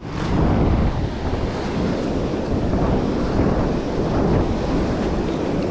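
Wind buffeting the microphone over breaking surf, a loud, continuous rumbling rush that starts abruptly at a cut.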